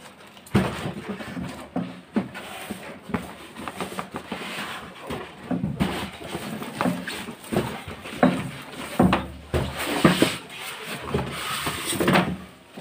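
Cardboard carton and its plastic wrapping being handled and pulled apart, with irregular rustling, scraping and knocks as the packaging is opened.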